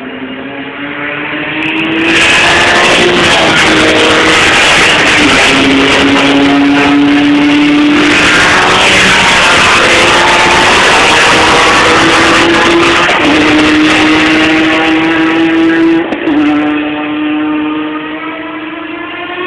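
Sports-prototype race cars at speed on the circuit, engines loud and high-revving. The engine note steps in pitch at gear shifts. It swells sharply about two seconds in and eases off near the end.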